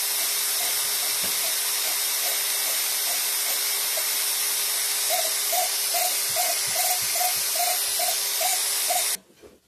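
Electric drill running steadily, spinning a motorcycle engine valve against its seat to lap it with grinding compound so the leaking valve seals. About halfway a repeating chirp comes in, nearly three times a second, and the drill stops suddenly near the end.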